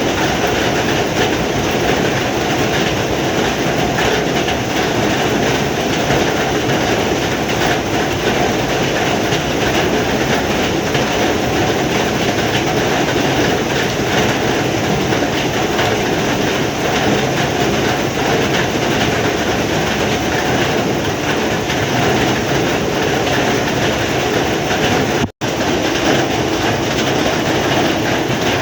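Heavy rain pouring steadily, a dense even hiss and patter, broken once by a split-second dropout near the end.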